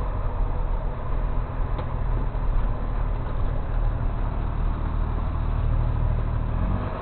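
Tow truck engine running while it drives, a steady low drone that changes note near the end.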